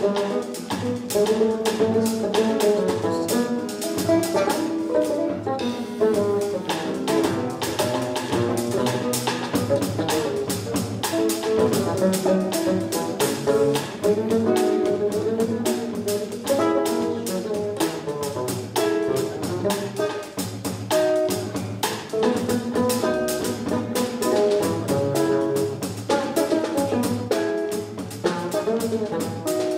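Live samba-jazz trio playing: an upright double bass plucked in a busy line, with a nylon-string guitar and a drum kit keeping a steady samba groove.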